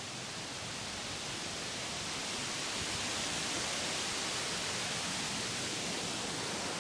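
Steady hiss of rain falling, swelling a little over the first few seconds.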